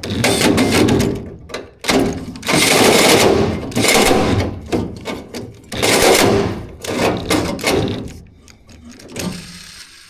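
Handheld power tool cutting into a car's dash panel in about six bursts of a second or two each, with short pauses between.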